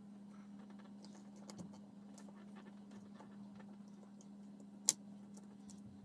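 Faint scattered clicks and taps of small plastic and metal air-pistol parts being handled and fitted by hand, with one sharper click about five seconds in, over a steady low hum.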